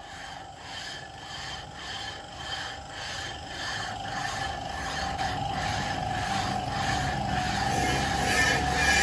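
Toyota Corolla GLI engine parts being rubbed against each other by hand: rasping metal-on-metal scraping in repeated back-and-forth strokes, about two to three a second, over a steady squeal-like tone. The strokes grow louder toward the end.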